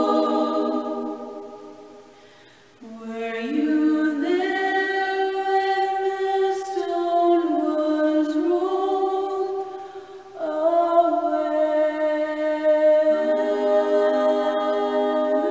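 Three women singing a cappella in close harmony. A held chord fades away, a new sung line begins about three seconds in, and a drawn-out closing 'Amen' in long sustained chords starts about ten seconds in.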